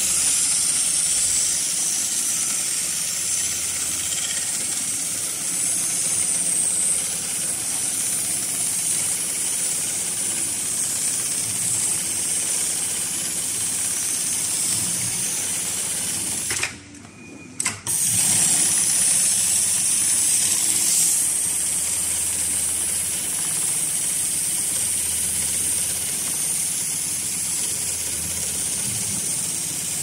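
HighTex MLK500-2516 heavy-duty CNC sewing machine running an automatic stitch pattern on ratchet-strap webbing: a steady mechanical run with a strong hiss over it, breaking off briefly about halfway through.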